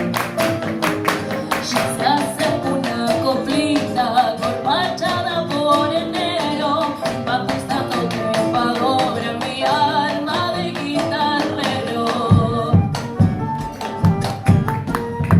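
Latin American ensemble music: fast, rhythmic strummed strings with sharp percussive strokes and a singing voice carrying a melody. About twelve seconds in, heavy low drum beats join.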